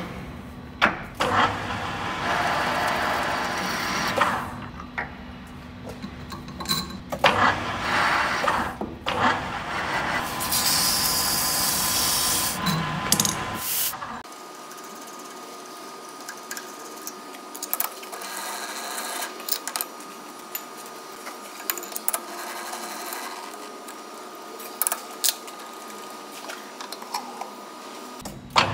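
Hafco centre lathe at work threading a long high-tensile steel bolt: the machine runs with a steady whine, broken by metallic clinks and knocks. About halfway through the sound changes abruptly, the deep rumble dropping out and leaving a steadier whine with scattered clicks.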